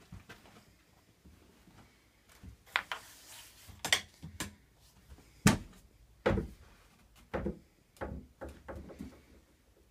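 Interior doors being handled: a run of separate knocks and thumps, the loudest about halfway through.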